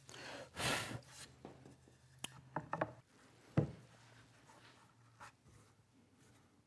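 Workshop handling sounds: a wooden fence board slid into place on a sled base, then a few light clicks and a sharp knock as bar clamps are fitted and tightened onto it.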